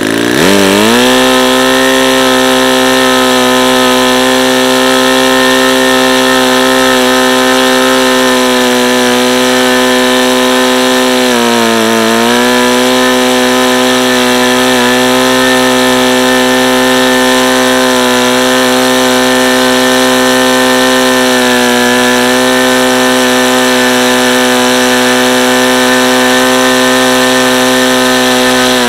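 Saito FA-90TS four-stroke glow engine swinging a 14x6 wooden propeller, opened up from idle to full throttle right at the start and running steady at about 7,500 rpm. Its pitch sags briefly about twelve seconds in and recovers, and it is throttled back down at the very end.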